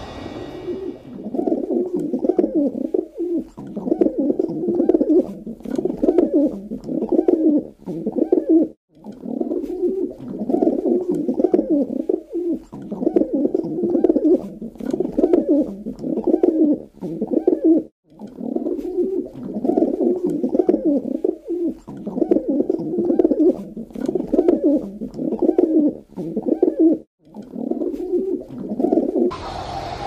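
Pigeon cooing: low, throaty coos repeated roughly once a second.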